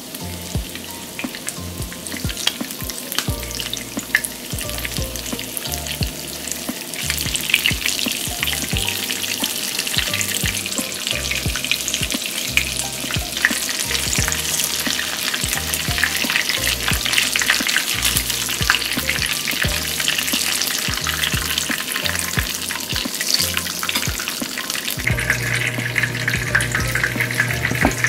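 Panko-breaded shrimp cutlets shallow-frying in oil in a pan: a dense, crackling sizzle that grows louder about seven seconds in.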